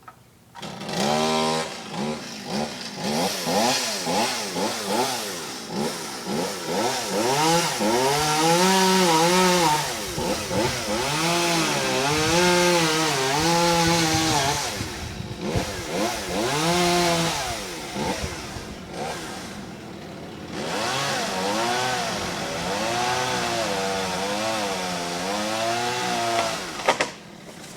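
Gas chainsaw running while cutting, its engine pitch rising and falling again and again as the throttle is worked. A couple of sharp knocks sound near the end.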